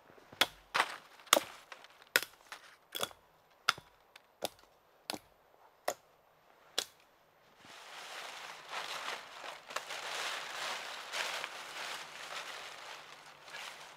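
A run of sharp cracks or knocks, about one every three quarters of a second and getting fainter, then several seconds of rough rustling.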